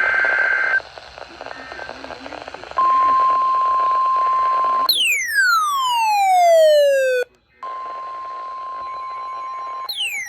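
Emergency alert tones: the end of a burst of buzzy digital header data, then hiss. Next comes a steady single-pitched weather-radio alert tone for about two seconds, broken by a whistle-like sweep falling steeply in pitch. The steady tone returns, and a second falling sweep starts near the end.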